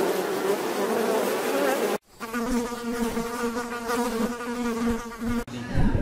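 Bee buzzing in two takes: a buzz that wavers in pitch, then after a brief break about two seconds in, a steadier, lower buzz. Near the end it gives way to a low rumble.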